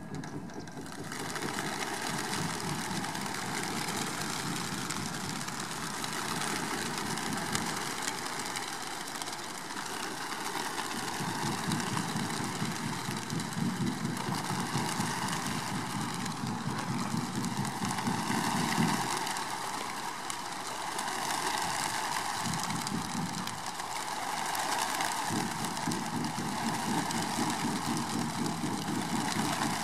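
Wingbeats of a huge flock of racing pigeons, about 1725 birds, pouring out of their transport truck and taking off together: a dense rushing flutter that starts about a second in and swells and dips as the flock lifts off.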